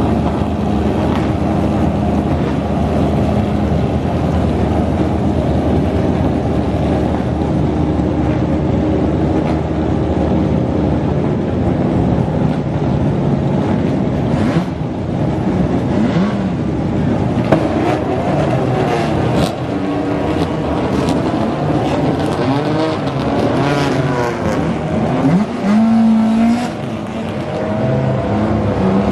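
Racing car engines running hard. Their pitch holds steady at first, then several engines rise and fall in pitch through the second half as the cars accelerate, lift off and pass.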